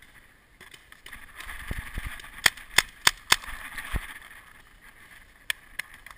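Paintball marker firing four quick shots, sharp pops about three a second, about halfway through, with a few dull knocks of gear being handled before and after.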